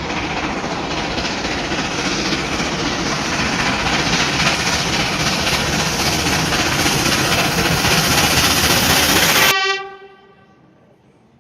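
Train passing at speed: a loud, steady rush of rail and running noise that cuts off suddenly about nine and a half seconds in, leaving a ringing tone that fades within a second.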